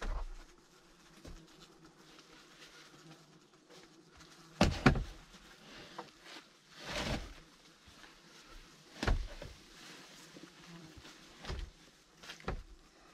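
Scattered dull thuds and knocks of heavy wooden logs being handled as a log post is stood up and set in place, about seven in all, the loudest a double knock about five seconds in, with a brief scraping rustle a couple of seconds later.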